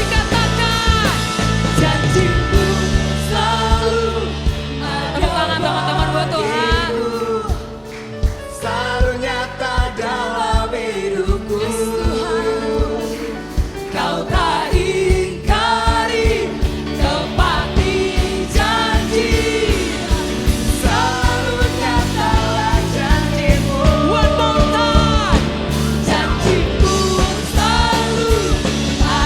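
Live church worship band playing an upbeat praise song with a steady drum beat, bass, and sung melody lines.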